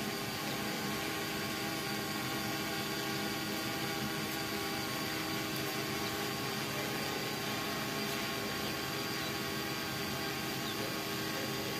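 Quadcopter hovering, its four 930 kV brushless motors and 1045 propellers giving a steady buzzing whine of several held tones over a hiss.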